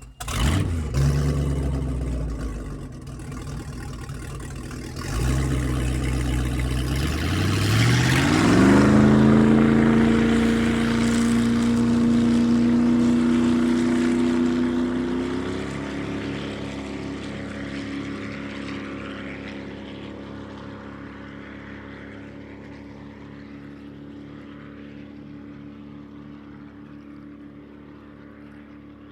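An engine sound effect: it starts suddenly and runs low and rough, then about eight seconds in revs steeply up to a steady high drone. The drone steps down slightly partway through and slowly fades away.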